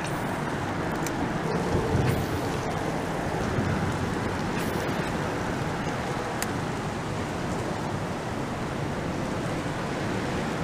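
Steady traffic noise from the highway bridge overhead, with a few faint clicks.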